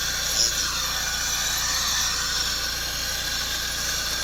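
Handheld torch gun's flame hissing steadily as it burns, with a short louder blip about half a second in.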